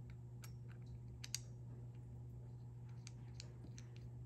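Scattered small clicks and taps of tungsten buttons being handled and fitted onto a tungsten tri-spinner fidget spinner, with one sharper click about a second and a half in and a few more near the end, over a faint steady low hum.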